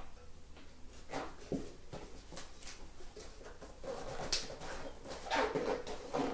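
Rubber tire bead squeaking and rubbing as it is pushed by hand over the rim's edge, with the loudest squeaks in the last couple of seconds. This is the last stretch of a Maxxis Minion DHF being mounted tubeless on a WTB Frequency i23 rim.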